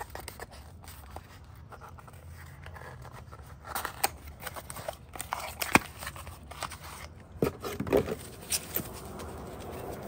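Small cardboard boxes being handled and opened, with paper and foam packing rustling and scraping and a few sharp clicks and taps.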